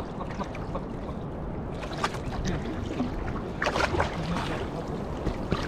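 Seawater lapping and sloshing against rubber inner-tube floats, with short splashes about two seconds and about four seconds in.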